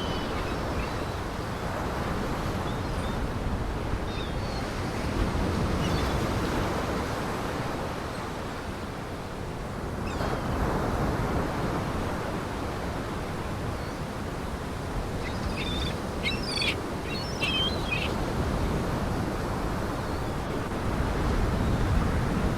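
Lake Michigan waves washing onto the shore, the surf swelling and easing every few seconds. A bird chirps several times in short bursts about two-thirds of the way in.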